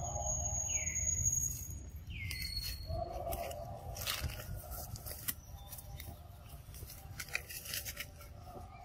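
A bird gives a short falling call twice in the first few seconds, over a low rumble, with scattered rustles and sharp twig clicks as macaques climb through the saplings.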